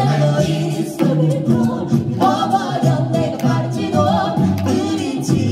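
A five-voice a cappella group of men and women singing into microphones, with a low bass voice holding notes under the melody.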